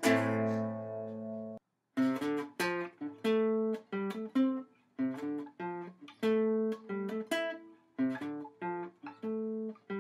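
Ukulele music: a strummed chord rings out and cuts off about a second and a half in. After a brief silence, a choppy riff of short plucked notes starts, in groups broken by short gaps.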